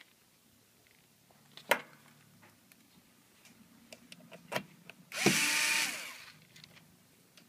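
Electric screwdriver running for about a second, driving a screw into the TV's back cover, after a few light clicks of screws and plastic being handled.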